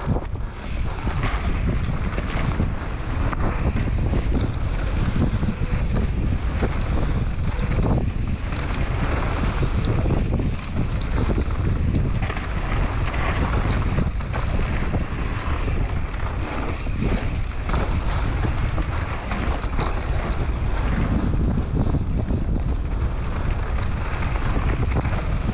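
Wind buffeting a helmet-mounted camera's microphone as a hardtail mountain bike rides fast down a dirt trail, with steady tyre rumble and frequent rattles and knocks from the bike over bumps.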